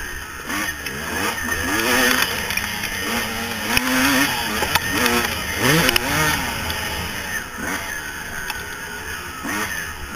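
2000 Yamaha YZ250's two-stroke single-cylinder engine revving hard, its pitch repeatedly rising and falling with the throttle and gear changes, with a few short knocks.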